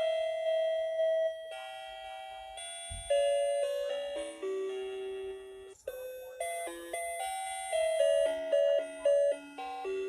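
A simple electronic Christmas tune from a toy's sound chip, played as clean chime-like notes one after another, with a brief break about six seconds in.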